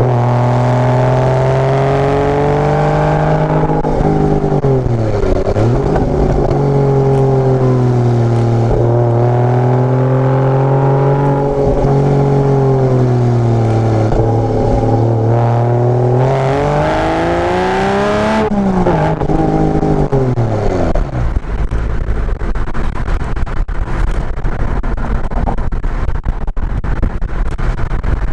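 Porsche Boxster engine through a tuned exhaust, pulling up a hill climb. Its note rises and falls, dips sharply about five seconds in, and climbs to a peak a little before the two-thirds mark before falling away. After that the engine note fades out, leaving a rough rushing noise with frequent crackles.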